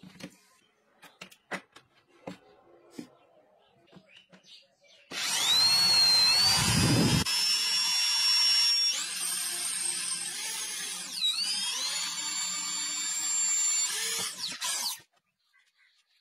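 Electric drill with a twist bit boring into the plastic casing of a flyback transformer. Its whine rises as it spins up about five seconds in, dips and picks up again about halfway, and stops shortly before the end. Before the drilling, a few faint clicks of the part being handled.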